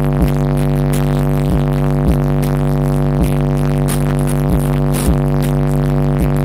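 Electronic music played through a car audio system's DC Audio Level 5 18-inch subwoofers: a steady buzzing bass drone with a strong low end, broken again and again by short falling bass hits.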